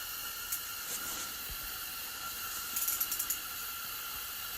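Steady hiss of a portable heater running inside an ice-fishing tent. Faint light clicks come about three seconds in.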